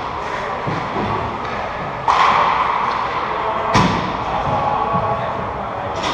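Ice hockey sticks and puck knocking on the ice during play, with several sharp knocks. The loudest comes about four seconds in and rings out in the large rink, over a steady background of skating and play noise.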